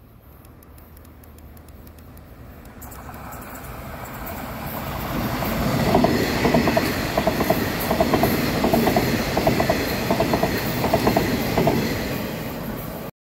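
Taroko Express tilting electric train approaching and passing close by, growing louder over a few seconds, then its wheels clacking over rail joints in regular pairs for several seconds. The sound cuts off suddenly near the end.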